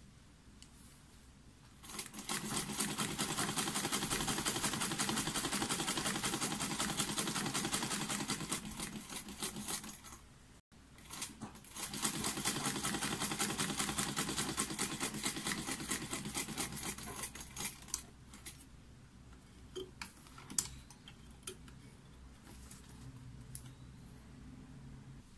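Sewing machine stitching a zipper onto a fabric strip: two runs of rapid, even ticking with a pause of about two seconds between them. Near the end come a few sharp clicks as scissors snip the thread.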